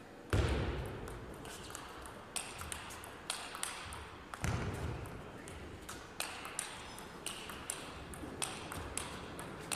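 Table tennis rally: the ball ticks sharply off the rackets and the table in a quick, uneven run of clicks. Two heavier thuds come just after the start and about four and a half seconds in.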